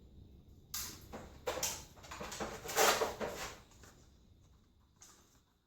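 Handling noises from unboxing an airsoft rifle: a few short rustling, sliding scrapes, the longest about two and a half seconds in, and a brief one near the end.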